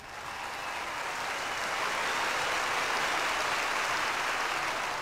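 Large seminar audience applauding, a dense even clatter that swells over the first couple of seconds and eases slightly near the end.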